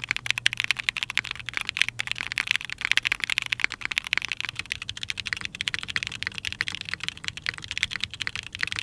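Fast, continuous typing on a custom mechanical keyboard fitted with Dangkeebs Strawberry Milk Ice long-pole linear switches: a dense stream of key clacks.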